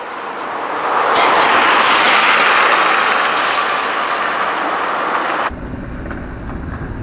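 City street traffic noise that swells as a vehicle passes, then cuts off abruptly about five and a half seconds in to a lower, steady rumble.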